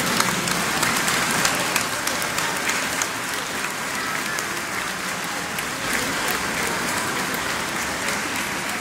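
Large crowd applauding, a dense patter of many hands clapping, strongest in the first couple of seconds and then easing a little.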